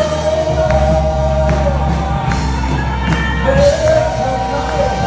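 Worship music: voices singing long, held notes over a band with bass and steady drum hits.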